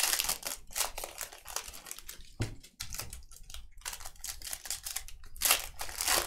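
Foil trading-card pack wrapper crinkling and tearing as the pack is opened by hand, in irregular crackles with a louder rip about five seconds in.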